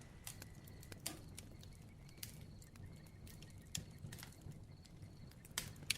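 Crackling bonfire, faint: a soft low hiss with irregular sharp pops and snaps from the burning wood, a couple of louder pops near the end.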